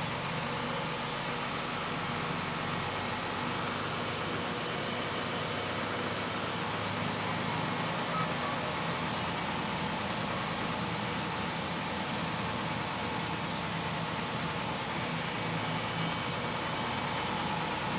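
School bus engine running steadily, heard from inside the passenger cabin as the bus moves slowly through the lot.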